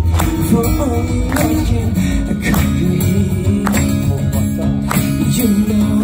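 Live acoustic guitars playing a slow soul song, with a percussive beat struck about once a second.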